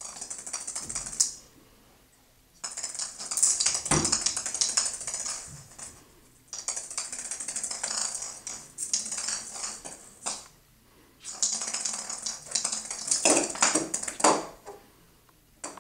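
A small Christmas ornament rattling and clicking as a kitten bats it across a tile floor, in about four bouts of a few seconds with short pauses between.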